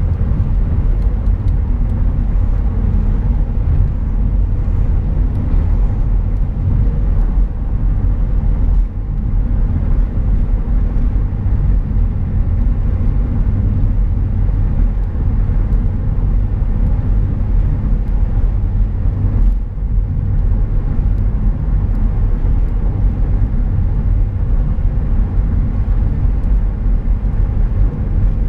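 Steady low rumble of road and tyre noise inside a car cabin cruising at highway speed on a concrete roadway.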